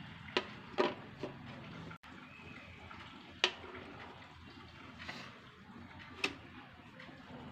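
Small plastic toy kitchen pieces tapping and clicking as they are set down on a hard surface: a few sharp taps, three close together at first, then single ones about 3.5 and 6 seconds in, over a steady hiss.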